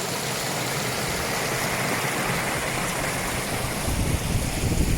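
Small mountain waterfall and stream running, a steady rush of water. A low rumble builds underneath near the end.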